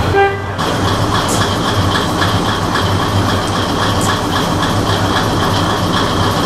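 Kominato Railway KiHa 200-series diesel railcar idling at the platform: a steady low engine hum with an even, rhythmic clatter. A brief pitched tone sounds right at the start.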